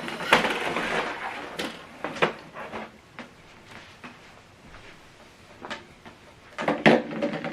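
Clicks and rustling from a USB cable being handled and plugged into the printer's rear port. The sounds come in clusters in the first second or so and again near the end, with a quieter stretch in between.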